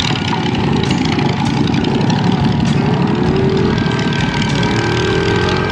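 An engine running steadily, its pitch rising twice in the second half.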